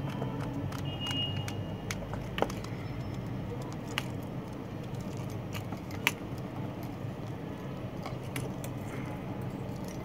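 Small clicks and rattles of XLR connector parts being twisted and fitted together by hand, sharpest about 2.5, 4 and 6 seconds in, over a steady low hum.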